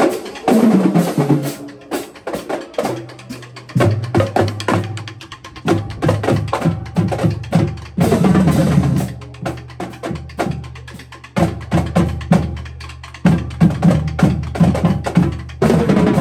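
Marching drumline playing a cadence: rapid snare and tenor drum strokes over tuned bass drums sounding low notes at several stepped pitches, on Pearl marching drums.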